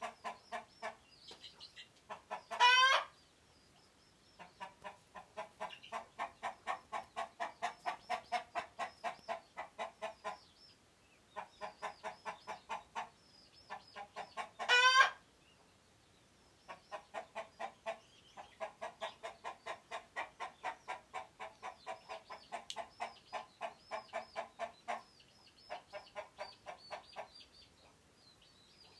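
Chickens giving alarm calls: long runs of rapid, repeated clucks at about four or five a second, with two loud, short rising squawks, about 3 s in and again about 15 s in. It is the scared noise of birds wary of an intruder, which the keeper takes to be himself.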